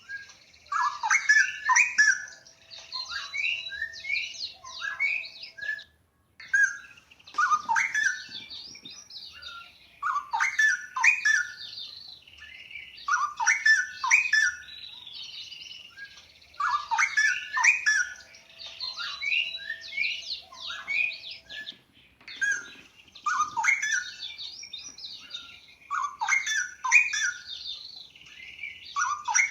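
Straw-headed bulbul (cucak rowo) singing in full song: loud, rich phrases of a few seconds each, repeated about every three seconds. Fainter high twittering runs underneath. The sound breaks off briefly about six seconds in.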